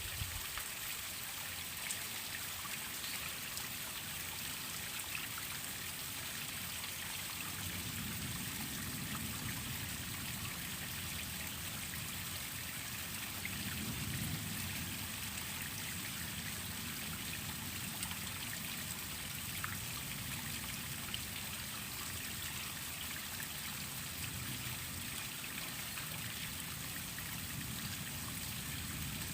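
Waterfall water falling and splashing in a steady rush, with a low rumble that swells and fades a few times.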